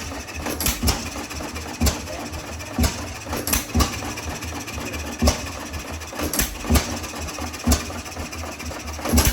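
Antique single-cylinder stationary engine running, its exhaust firing in sharp, unevenly spaced pops about one or two a second over a steady low chugging.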